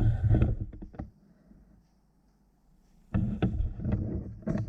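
Handling noise with bumps and knocks, in two bouts: one in the first second, then another starting about three seconds in, with a low rumble under the knocks and quiet between them.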